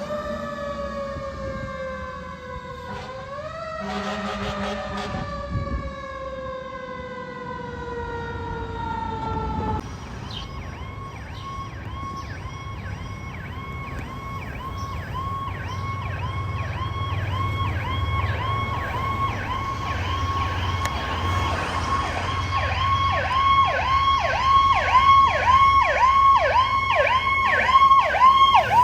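Fire engine sirens: a long wail falling slowly in pitch for about ten seconds, then a rapid yelp sweeping up and down about three times a second, getting louder toward the end, over the low drone of a truck engine.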